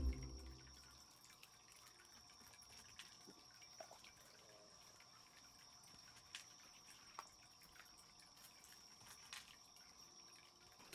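Near silence: room tone with a faint steady high whine and a few faint, scattered clicks.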